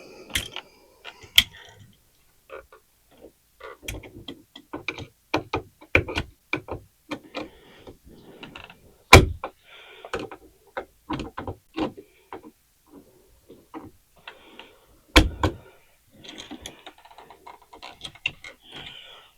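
Stiff old wiring and a light switch being pushed and worked into a wall electrical box: many scattered clicks, rattles and short scrapes, with two loud knocks about nine and fifteen seconds in.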